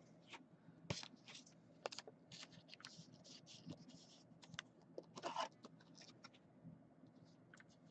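Faint, scattered clicks, taps and scratchy rustles of trading cards and plastic card sleeves being handled and sorted, a little louder about five seconds in.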